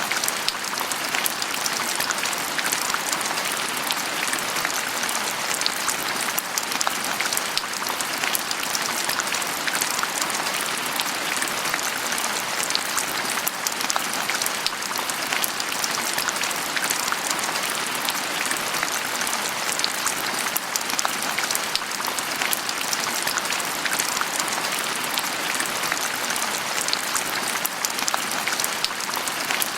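Steady rain falling on a surface, a dense patter of many small drops with an even hiss.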